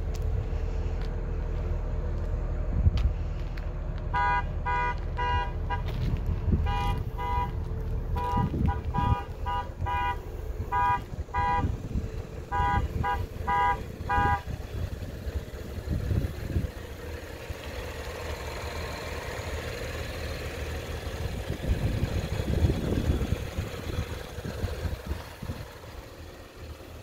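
A vehicle horn giving short repeated honks in irregular clusters of two or three for about ten seconds, then stopping. Underneath is a steady low rumble.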